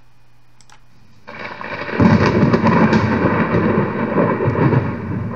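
Recorded thunder sound effect playing back: a rumble of thunder swells in about a second in, is loud from about two seconds in, and eases slightly near the end.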